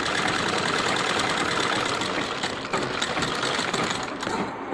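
Sewing machine running at a steady speed, topstitching along the edge of a shirt's front placket, with rapid even needle strokes; it eases off near the end.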